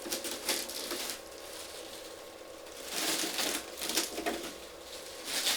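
Packaging rustling and crinkling as it is handled and pulled away, in several bursts: one at the start, a louder spell around three seconds in, and a short one at the end.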